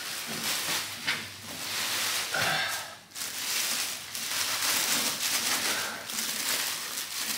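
Clear plastic wrapping bag crinkling and rustling as it is pulled off a large RC crawler truck, with a brief lull about three seconds in.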